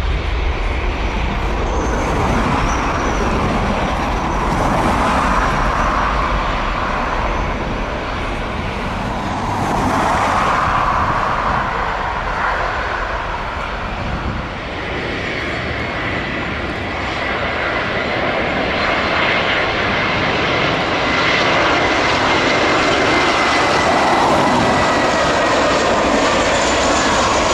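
Jet airliner engines running loud and steady, with a faint high whine that comes in about halfway through and drifts slightly lower in pitch.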